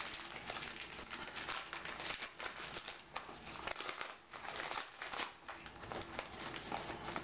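Brown kraft paper wrapping being torn and crumpled off a parcel by hand: a dense, crackling rustle with many small rips.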